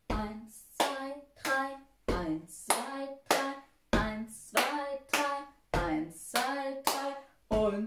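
A woman's hand claps marking a three-four beat, about one and a half a second, each clap paired with her counting "eins, zwei, drei" over and over.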